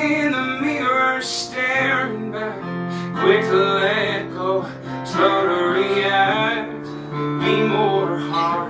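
Live acoustic music: acoustic guitar strumming and a digital piano, with a voice singing over them.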